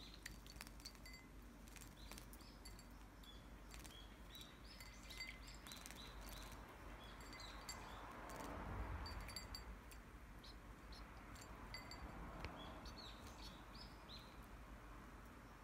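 Fledgling Japanese tits giving many short, high chirps, mixed with the light splashing and wing-fluttering of a fledgling bathing in a shallow dish of water. The splashing swells to its loudest about halfway through. All of it is faint.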